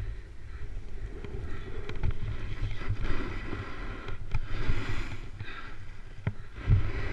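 Wind buffeting a GoPro's microphone with a low rumble while a snowboard runs downhill, its edge scraping and hissing over packed snow in swells, with a few sharp knocks about four, six and six and a half seconds in.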